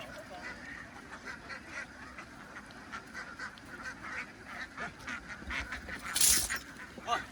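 A flock of ducks quacking and calling continuously, many short calls overlapping. About six seconds in, a loud, brief rushing noise rises over the calls.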